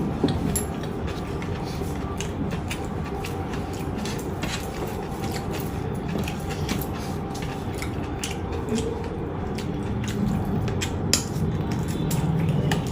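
Eating sounds: scattered short clicks and smacks of chewing food, over a steady background hum.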